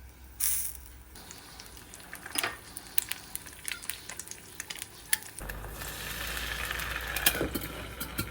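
Kitchen cooking sounds: a short hiss about half a second in, then scattered clicks and taps of a utensil on cookware. From about five seconds in, a steady sizzle of food frying sets in over a low hum.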